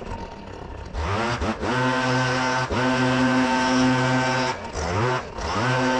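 Engine of a leaf vacuum running at high speed with a steady drone. It sags at the start and climbs back about a second in, dips briefly midway, and sags and recovers again near the end.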